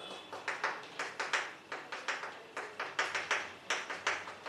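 Quick, irregular taps and short strokes of drawing on a teaching board, about four a second.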